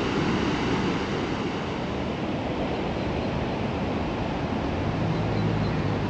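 Steady rushing of river water pouring over a weir, an even wash of noise. A low hum joins it near the end.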